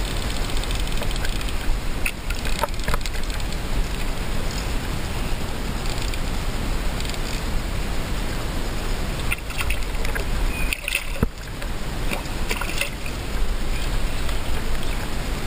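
Steady rush of river water close to the microphone, with a few sharp splashes as a hooked barbel thrashes at the surface.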